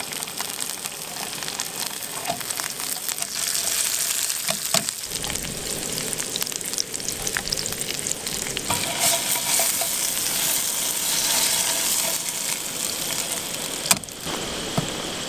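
Sriracha-coated ruffed grouse legs sizzling and crackling in hot oil in a small camp frying pan on a canister gas stove, being reheated until crisp. The frying gets louder about four seconds in, and there is a brief knock near the end.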